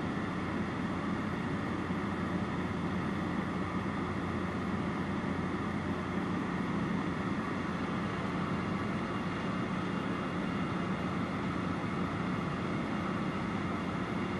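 Steady drone of a light high-wing propeller aircraft's engine and propeller in cruise, heard from inside the cabin, with no change in pitch or level.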